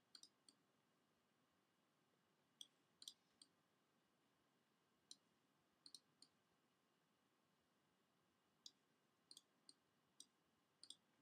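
Faint clicks of a computer mouse and keyboard, in small groups of two or three every second or two, over near silence.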